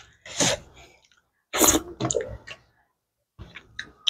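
Close-miked eating sounds from a person eating by hand: short, sharp bursts of mouth noise, smacking, sucking and quick breaths, in three clusters about a second apart.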